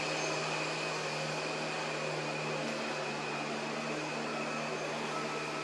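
Steady machine drone: a constant low hum under an even hiss, with a faint high steady tone, unchanging throughout.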